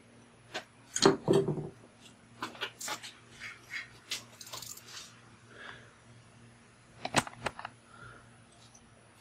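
Scattered metallic clicks, clinks and knocks as hand tools and a bicycle fender are handled, the loudest knock about a second in.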